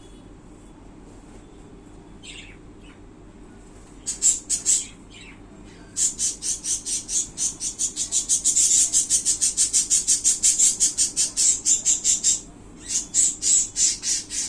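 Budgerigar chirping in short, high-pitched notes: a few about four seconds in, then a long fast run of about five chirps a second, then a few more near the end.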